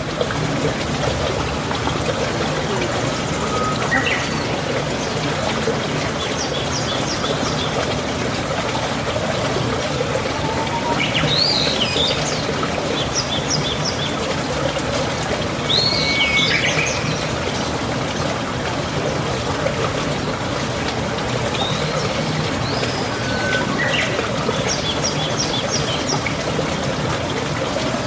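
Wild birds calling now and then: short runs of quick high notes and a few swooping calls, over a steady rushing noise like running water.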